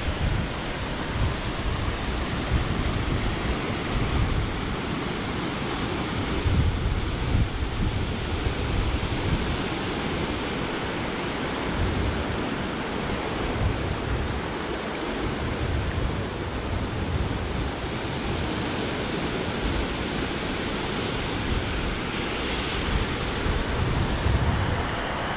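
Small surf waves breaking and washing up a shallow sandy beach, with wind buffeting the camera microphone in gusts.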